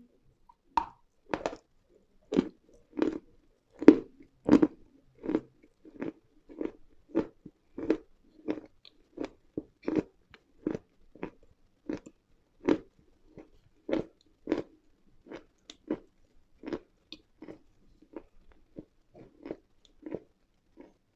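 Close-miked chewing of hard, dry edible mineral lumps: a steady run of crisp crunches, roughly one and a half a second, growing softer over the last few seconds.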